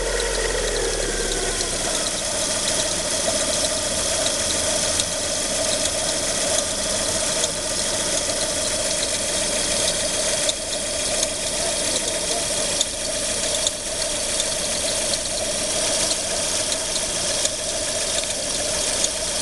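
Lada Priora engine settling from a rev back to idle. A steady whistle and irregular light clicks come from the new Gates timing-belt tensioner roller, noises that appeared only after the original timing kit was replaced with the Gates kit.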